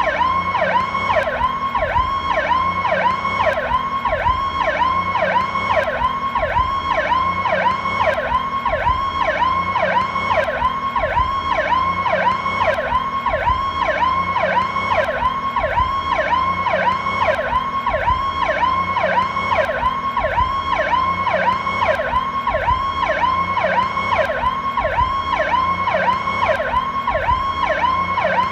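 Ambulance's Federal Signal Powercall electronic siren sounding a fast repeating sweep, about two swoops a second, dipping and rising in pitch without a break.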